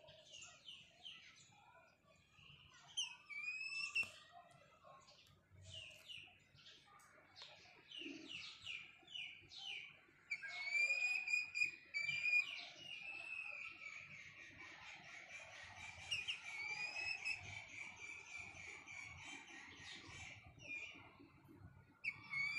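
Young junglefowl calling: a run of short, high, falling chirps, then from about ten seconds in longer high calls that are held and bend up and down in pitch.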